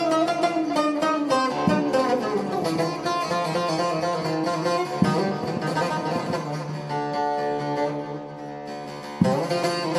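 Bağlama (long-necked Turkish saz) playing a solo bozlak-style instrumental passage: runs of plucked notes, with hard strummed strokes about halfway through and again near the end.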